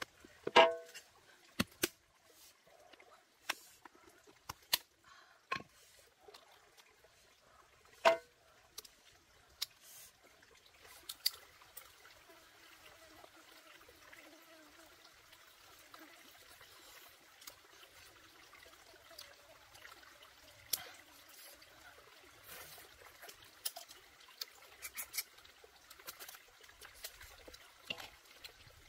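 Scattered sharp clicks and knocks, most of them in the first dozen seconds and two much louder near the start and about eight seconds in, over faint trickling water.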